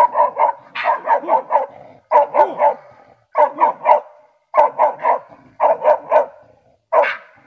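A Russo-European Laika hunting dog barking in quick bursts of three or four sharp barks, with short pauses between, while baying at a raccoon dog.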